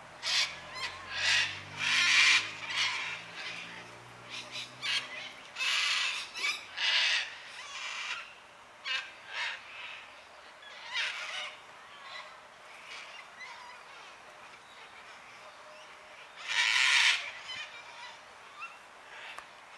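A flock of cockatoos screeching, with many harsh, raspy calls overlapping and coming in bursts; the loudest screeches come about two seconds in and again near the end.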